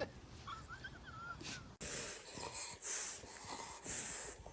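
A dog breathing: a few quiet, hissy, wheezing breaths, about one a second.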